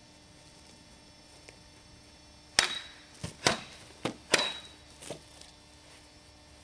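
Custom FableBlades elven saber and dirk cutting at targets: about six sharp strikes in quick succession over some two and a half seconds, with a short high ring after two of the loudest.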